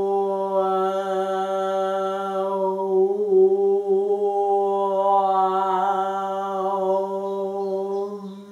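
A woman chanting one long, slow-motion 'Om' on a single steady pitch. The vowel shifts as she exaggerates her mouth shape, and the chant gets quieter near the end.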